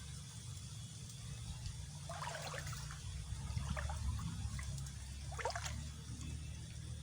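Water trickling and splashing in a few short, irregular bursts, about two seconds in, near four seconds and about five and a half seconds in, over a steady low rumble.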